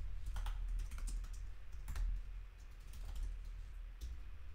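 Typing on a computer keyboard: irregular key clicks, a few a second, over a low steady hum.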